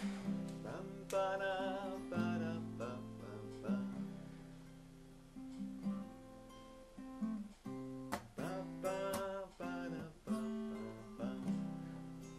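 Background music: acoustic guitar playing, plucked notes and strummed chords.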